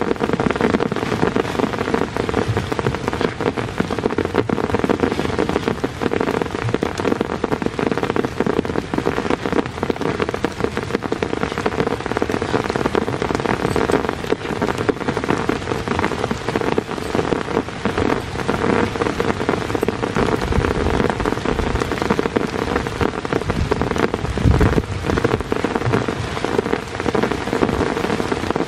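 Heavy rain falling steadily, a dense stream of drops striking a surface close by.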